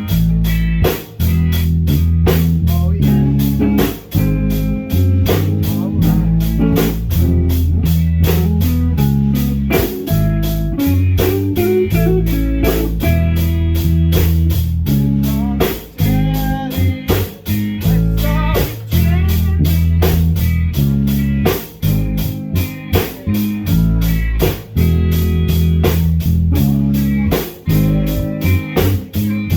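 Band music with guitar, bass guitar and drum kit playing a steady beat.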